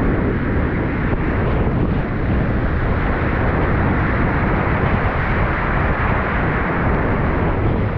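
Breaking whitewater surf churning around a camera held at water level: a loud, steady rush of foaming water.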